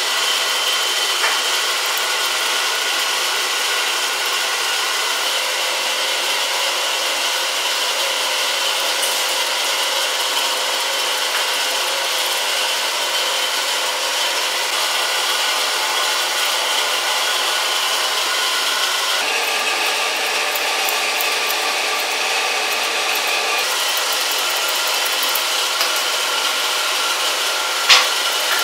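A small motor running with a steady whir and a few held tones that shift about two-thirds of the way through. There is one sharp click near the end.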